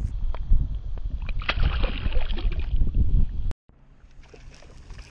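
Shallow water sloshing and splashing as a fish is lowered from the hand and let go, with wind rumbling on the microphone. About three and a half seconds in, the sound cuts out abruptly and gives way to much quieter lapping water.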